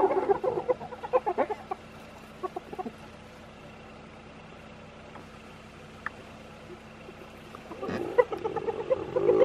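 Spotted hyenas calling excitedly in a clan squabble: a quick run of rapid, chattering calls that dies away over the first couple of seconds, then a fresh, louder outburst near the end.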